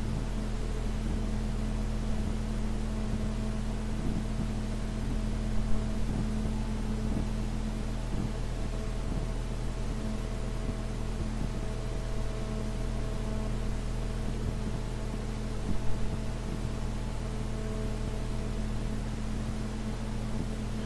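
Steady hiss with a low, even hum: the background noise of an old recording between verses of a Quran recitation. It has a couple of faint short sounds about six and sixteen seconds in.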